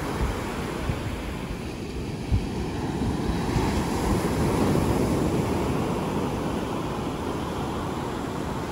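Surf breaking and washing up a sand beach, a steady rush that swells about midway through, with wind buffeting the microphone.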